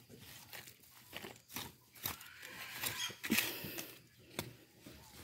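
Digging in loose garden soil: scattered short scrapes and crunches, with a louder stretch of scraping about three seconds in.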